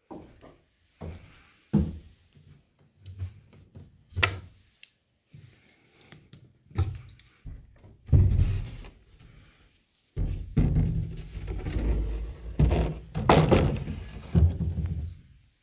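Footsteps and thuds on wooden floorboards, with scattered sharp knocks and clicks in the first half. A louder, continuous low rumble comes in about ten seconds in and runs until shortly before the end.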